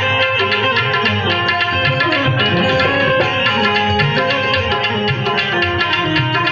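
Indian folk-style music: tabla drumming under a pitched melody line, playing steadily.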